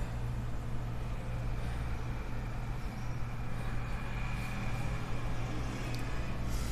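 Steady low rumble of background noise, with a faint thin whine over it for a few seconds and a single click about six seconds in.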